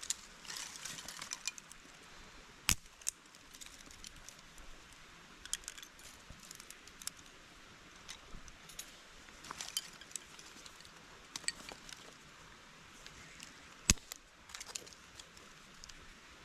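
Scattered light clicks, clinks and rustles of small objects being handled, with two sharper clicks, one a few seconds in and the louder one near the end.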